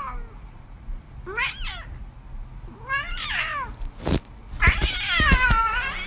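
Domestic cat meowing repeatedly, about every one and a half seconds, ending in a longer meow with a wavering pitch. There is a sharp knock about four seconds in and a few low thumps just after it.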